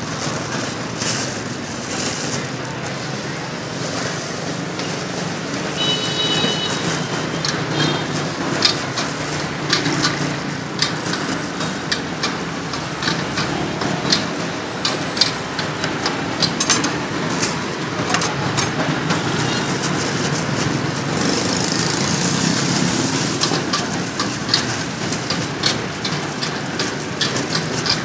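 Steady street traffic noise, a continuous low rumble of passing engines. Over it come many short sharp clicks and crinkles from a plastic bag and a knife as fruit is cut by hand, and there is a brief high tone about six seconds in.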